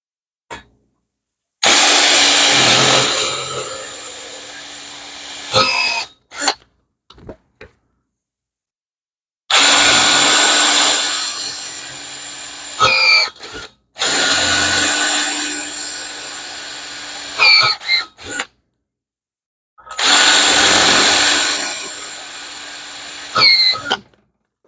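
Power drill boring a 4 mm hole into a motorcycle steering stem lock to drill it out, in four runs of a few seconds each. Each run starts loud and eases off, then ends with a short squeal, with brief clicks in the pauses between runs.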